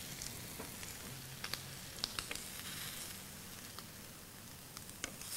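Bacon sizzling faintly on a hot ridged grill pan: a steady low hiss with scattered small crackles.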